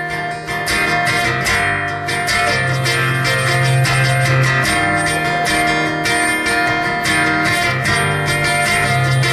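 Acoustic guitar strummed in a steady rhythm, an instrumental break between sung lines of a live song.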